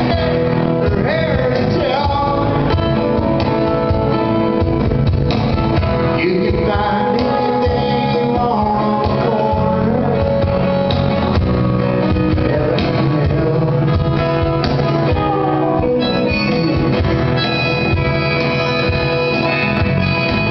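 Live country-rock band playing: a man singing over strummed acoustic guitar, electric bass and a cajón beat. The voice drops out about three-quarters of the way through, leaving the instruments playing.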